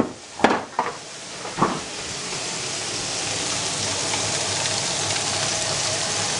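A few short knocks in the first two seconds, then food sizzling in a frying pan, a steady hiss that grows louder.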